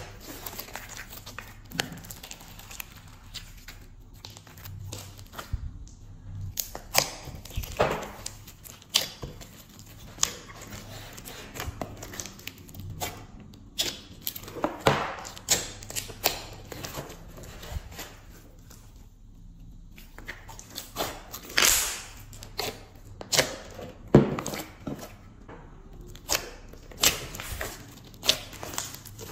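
Glossy slime being squeezed, folded and poked by hands, giving irregular sticky pops, clicks and crackles as air pockets burst and the slime pulls apart, with a few louder snaps.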